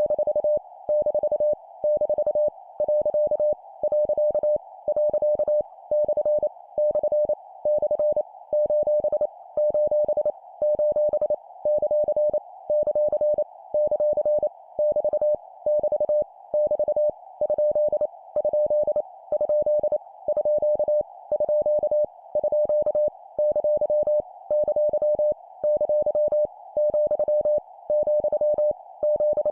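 Morse code (CW) practice tone sent at 25 words per minute: a single steady mid-pitched beep keyed on and off in quick dots and dashes, with regular short pauses between characters. The characters are punctuation marks, each repeated three times, with a soft hiss behind the tone.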